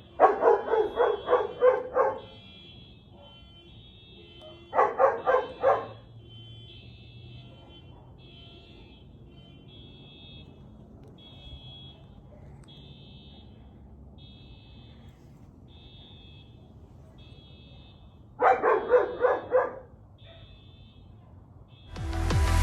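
A dog barking in three bursts of rapid barks over a fainter car alarm beeping in a repeating cycle, an alarm set off by the firework salute's blast. Music comes in just at the end.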